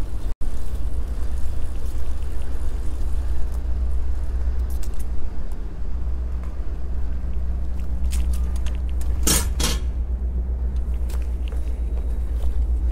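Steady wind rumble and riding noise on a bike-mounted GoPro while cycling, with two sharp clicks close together about nine seconds in.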